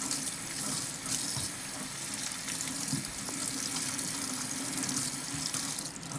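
Kitchen tap running onto a stainless steel sink as bell pepper pieces are rinsed by hand under the stream, a steady rush of water that cuts off near the end.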